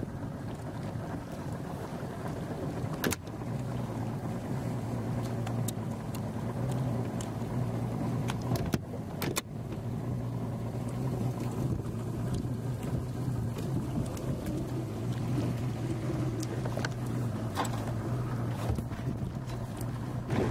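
A boat's motor idling steadily with a low hum. A few sharp knocks come about three seconds in and twice around nine seconds.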